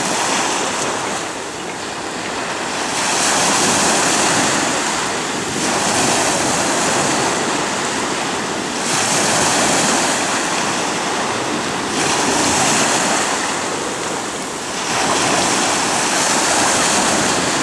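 Sea waves washing onto a stony beach: a steady rushing surf that swells and eases every few seconds.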